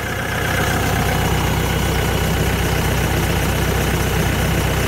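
TYM 654 tractor's turbocharged Deutz four-cylinder diesel idling steadily, growing a little louder within the first second.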